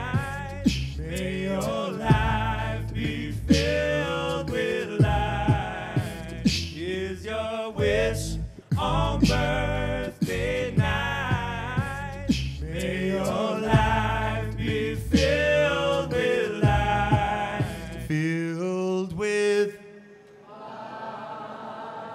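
A man's voice layered through a loop pedal into a cappella harmonies, with a bass line and regular vocal-percussion clicks. The loop cuts out about eighteen seconds in, leaving a last sung phrase, and a softer audience sound follows near the end.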